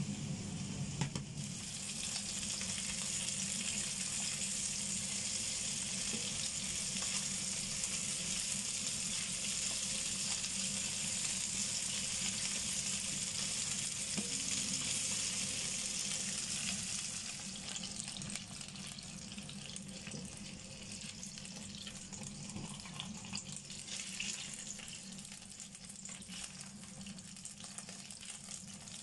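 Chicken wings sizzling as they pan-fry in oil, a steady hiss that turns quieter about two-thirds of the way through, with scattered pops and crackles.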